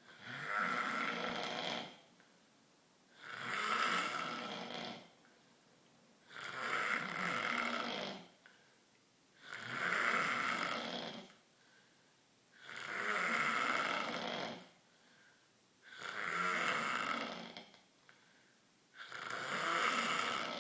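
A man snoring in a steady rhythm: seven snores, one about every three seconds, each lasting nearly two seconds, with quiet gaps between.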